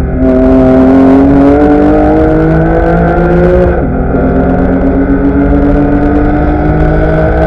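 Porsche Cayman S flat-six heard from inside the cabin, accelerating at full throttle with its pitch climbing. The pitch drops sharply on an upshift about four seconds in, then climbs again.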